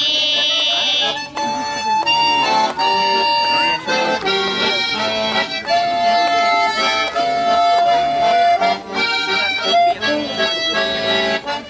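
Instrumental music without singing: a melody of long held notes over chords, the backing of a children's song between its sung verses.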